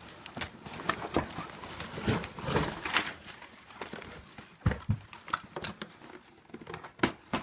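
A toy's cardboard box and packaging being handled and pulled open: rustling and scraping with a string of sharp taps and knocks.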